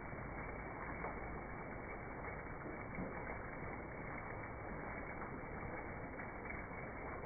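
Steady, even background noise with no distinct events.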